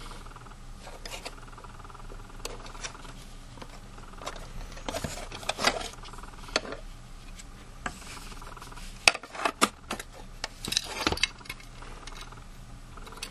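Small hard plastic objects being handled: scattered clicks, taps and rubbing, with a few louder knocks and clatter about five seconds in and again around nine to eleven seconds in.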